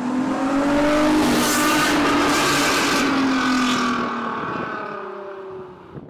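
Car engine sound effect revving, with a rushing hiss. It swells over the first second, holds, then fades and cuts off suddenly at the end.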